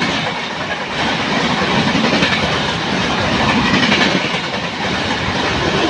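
Indian Railways train passing at speed, wheels clattering on the track under a steady loud rushing noise.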